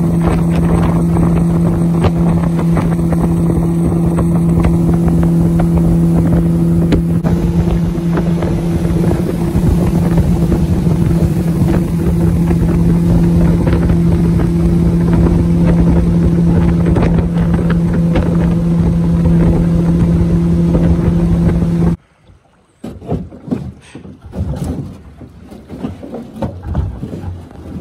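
Jon boat's outboard motor running at a steady throttle as the boat moves upriver, a loud even hum with wind on the microphone. About three-quarters of the way through it cuts off suddenly to much quieter, uneven noise.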